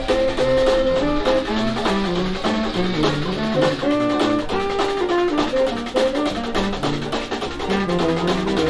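Dixieland jazz band playing, a brass melody over drums with a steady beat.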